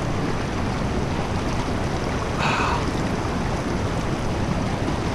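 A fast-flowing creek rushing steadily, with a brief higher-pitched sound about halfway through.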